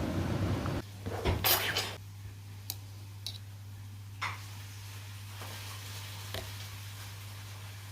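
Dishes and utensils being handled: a rush of noise that stops just under a second in, a clatter about a second later, then a few separate clinks and knocks, over a steady low hum.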